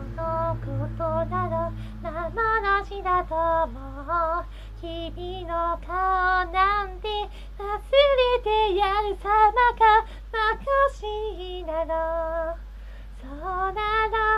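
Background song: a high voice singing a melody, holding notes with vibrato.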